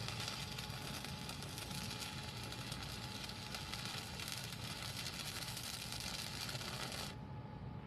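Homemade jigsaw driven by an air-conditioner outdoor-unit fan motor, running with a steady hiss over a hum. The hiss cuts off abruptly about seven seconds in.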